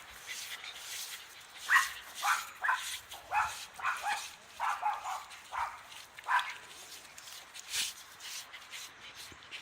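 Dog barking in a quick run of short, sharp barks, about two a second, then a single bark near the end.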